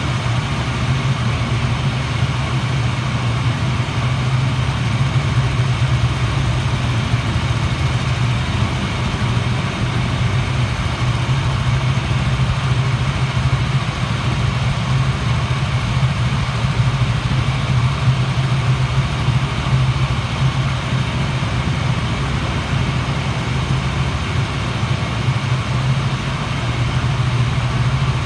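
KTM 200 motorcycle's single-cylinder four-stroke engine idling steadily through its stock exhaust, with no revving.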